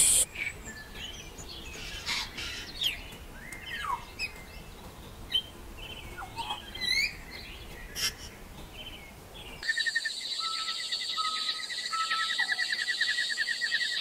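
Several birds chirping and whistling in short, separate calls and quick pitch glides. About ten seconds in, the sound changes abruptly to a steady, rapid pulsing trill with a few short whistles over it.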